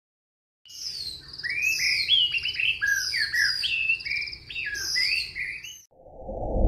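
A bird singing a fast, varied string of chirps and sliding whistled notes. About six seconds in, the song stops and a low whooshing swell rises.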